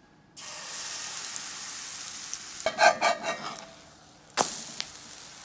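Pancake batter frying in hot oil in a cast-iron skillet, sizzling. The sizzle starts suddenly a moment in and dies down, then comes back sharply about four seconds in.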